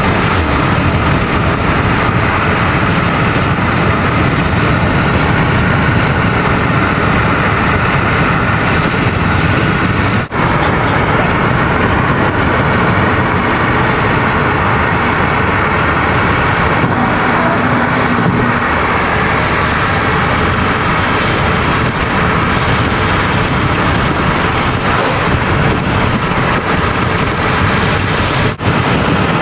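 Steady road and engine noise of a car driving, with no let-up apart from two very short dropouts, about a third of the way in and near the end.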